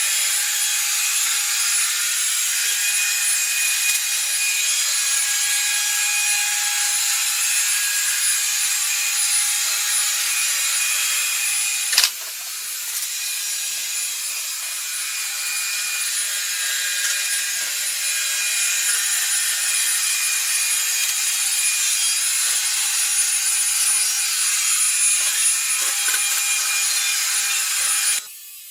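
Robot vacuum cleaner running, a steady whirring with a high whine over it. There is a sharp click about twelve seconds in, and the noise cuts off suddenly near the end.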